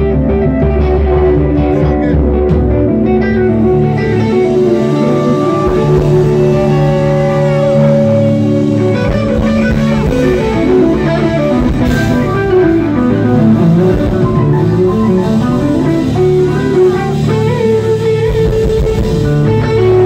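A rock band playing live, with an electric guitar to the fore over bass: the guitar plays a winding lead line with bends and quick runs up and down.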